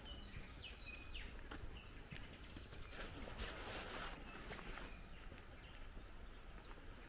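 Outdoor woodland ambience: small birds chirping several short high notes in the first second and a half, a soft rustling rush about three seconds in, and footsteps on a leaf-covered gravel path.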